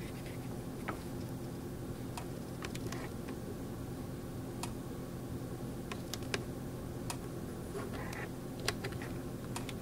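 Leaking kitchen faucet dripping into the sink: small, sharp drips at irregular intervals over a steady low hum.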